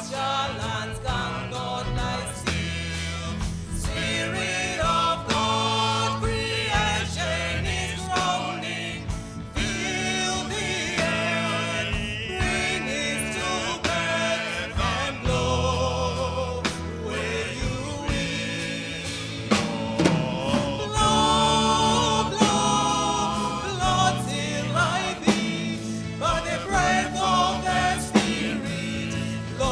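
A choir singing a gospel-style song over an instrumental accompaniment with a steady bass line and light drums.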